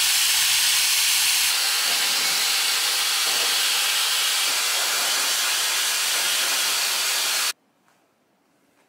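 Shark FlexStyle in hairdryer mode blowing air on low heat, a loud steady rushing hiss. The low rumble underneath drops away about a second and a half in, and the blowing cuts off suddenly near the end.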